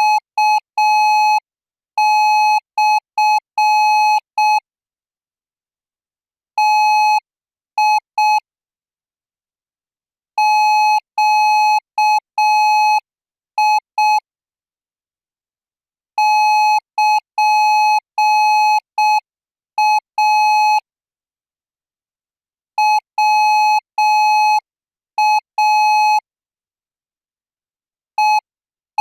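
Thai Morse code training signal: a single beeping tone keyed in dots and dashes at 10 words per minute, each character sent as a short group with a pause of about two seconds before the next.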